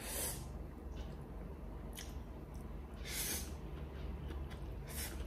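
Close-miked eating of stir-fried instant noodles: a few short airy slurps, the strongest about three seconds in, with wet chewing between them.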